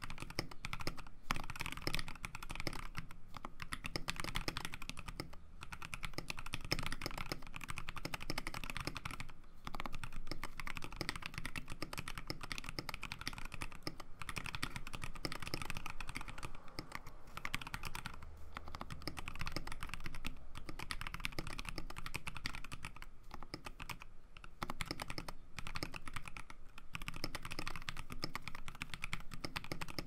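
Steady fast typing on a KBD67 Lite custom mechanical keyboard with Durock linear switches, cherry-profile keycaps and lubed stabilizers, damped by silicone between plate and PCB and foam in the case. It gives a deep, thocky stream of keystrokes with a few brief pauses.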